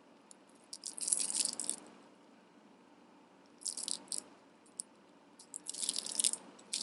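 Costume jewelry and plastic beads clicking and rattling as they are handled, in three short bouts of quick clatter with quiet pauses between.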